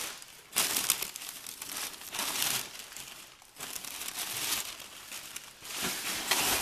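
Brown packing paper rustling and crinkling as hands push it aside inside a cardboard box, in several irregular bouts.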